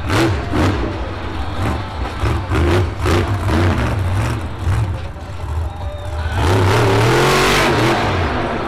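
Grave Digger monster truck's supercharged V8 revving hard in repeated surges through a freestyle run. The loudest, longest blast of engine comes about six seconds in and lasts a couple of seconds.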